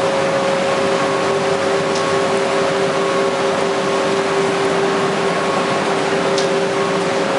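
UV coating production line running: a steady whirring machine noise with a constant two-tone hum underneath, unchanged throughout.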